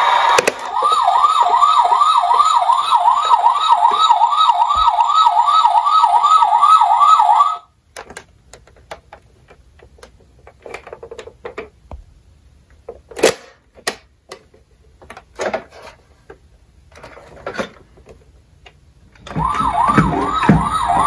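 Toy ambulance's electronic siren sounding a fast up-and-down yelp, about three sweeps a second, which cuts off suddenly about seven and a half seconds in. Then come scattered plastic clicks and knocks as the toy is handled and its side panel is folded open. The siren starts again near the end.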